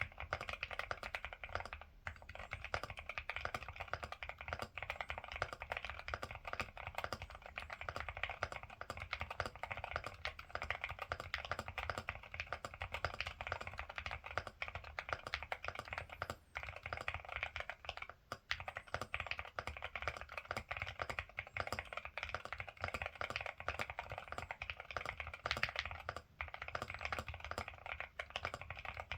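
Ciddo V65 V2 mechanical keyboard with Akko Rosewood switches being typed on fast and continuously, a dense stream of keystrokes with a couple of brief pauses past the middle.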